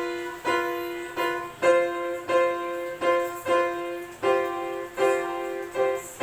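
A child playing the piano: a simple melody of single notes struck one after another, about one every two-thirds of a second, each ringing and fading.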